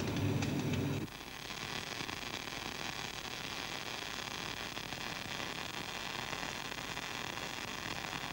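A welding arc buzzes and crackles for about a second, then cuts off suddenly. A steady hiss with a faint hum follows.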